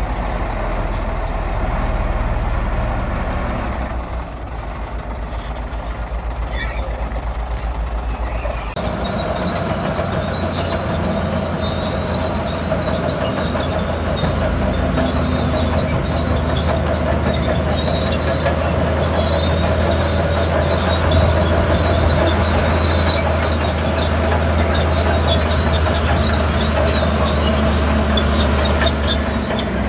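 Bulldozer's diesel engine running, with its steel crawler tracks clanking and squealing as it moves. The sound grows louder and fuller about nine seconds in.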